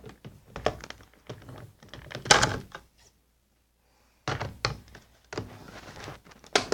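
Toy packaging being handled and opened: a series of irregular knocks and thunks, with a stretch of rustling and scraping about two-thirds of the way through.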